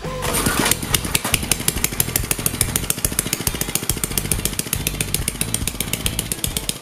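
Single-cylinder four-stroke Briggs & Stratton engine with a see-through glass head running on 151-proof rum fed into its carburetor. It fires in a steady, rapid rhythm of sharp pulses from under a second in.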